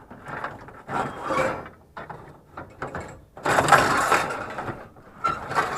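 Scrap being shifted and packed by hand: a run of irregular rattles and scrapes, the longest and loudest about three and a half seconds in.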